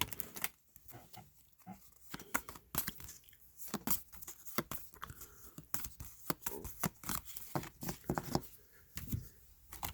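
Topps wrestling trading-card packs and cards being handled, a scatter of short crinkles, tears and card flicks from foil wrappers and card stock.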